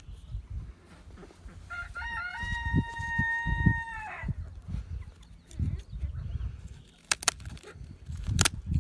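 A chicken gives one long, steady call of about two seconds that steps up in pitch at the start and drops away at the end. Near the end come two sharp snips about a second apart, as scissors cut through a hen's wing flight feathers.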